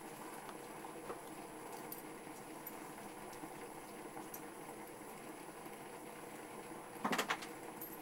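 Top-loading washing machine running with water swishing in the tub, a steady, even noise. About seven seconds in there is a brief, louder clatter.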